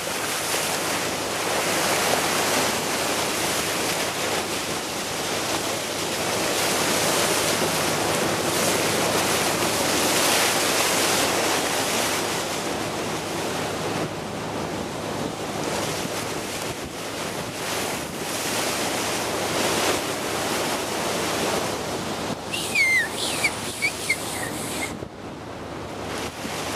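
Water rushing and splashing along a sailing yacht's bow as it pushes through the sea, with wind buffeting the microphone. A few short high squeaks come near the end.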